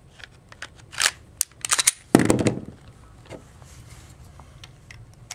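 Metallic clicks and clacks of a Glock pistol being handled: slide and magazine parts snapping, with a louder knock just after two seconds in as the pistol goes down on the wooden bench, then a few fainter clicks. No shot is fired.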